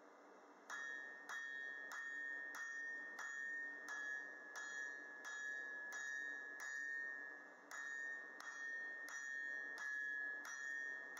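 Hand hammer striking a red-hot steel bar on a TFS anvil, starting about a second in at roughly one and a half blows a second with a brief pause about two-thirds through. Each blow leaves the anvil ringing with a high, steady tone.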